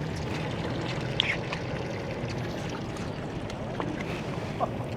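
Fishing boat's engine running steadily, with scattered short clicks and squeaks on deck.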